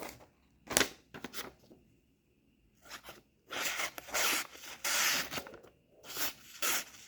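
A Victorinox Hunter Pro Alox knife blade slicing through a sheet of paper in a sharpness test, the paper rustling with each cut. There are a few short strokes early on, a longer run of slicing in the middle, and more short strokes near the end.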